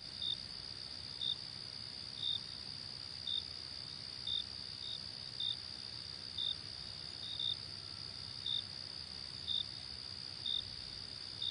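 Crickets chirping: a steady high-pitched trill with a short chirp repeating about once a second.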